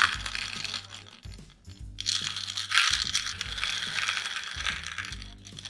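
Small beads inside a homemade cardboard rain stick rattling and hissing as it is handled, in two stretches: a short one, then a longer one of about three seconds.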